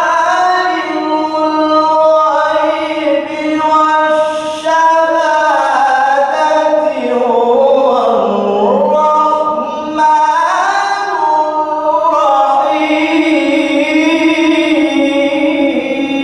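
A male qari's solo Quran recitation in the melodic mujawwad style: one voice holding long, ornamented, wavering notes, high in pitch. He takes a short break about ten seconds in, then starts a new phrase.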